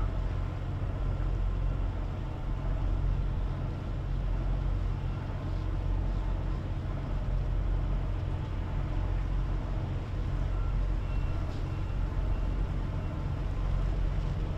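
Steady low rumble of the car ferry M/V Woods Hole's diesel engines as the vessel comes close.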